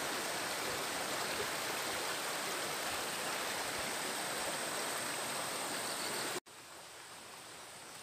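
Muddy floodwater rushing fast across a flooded path, a steady loud rushing. About six seconds in it cuts off abruptly and a much fainter, calmer water sound follows.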